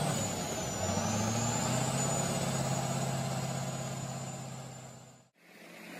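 Heavy vehicle engine running steadily, with a high thin whine over it, fading out about five seconds in before another engine fades up.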